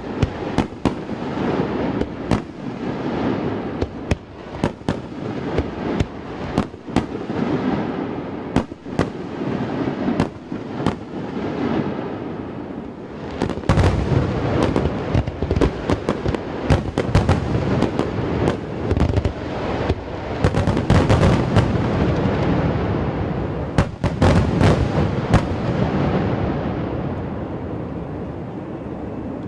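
Aerial fireworks display: a fast barrage of shell bursts, many sharp bangs close together and thickest in the middle stretch, followed near the end by a rumbling tail that slowly fades.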